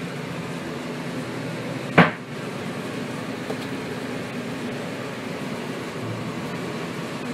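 Steady even background noise, with one sharp knock about two seconds in.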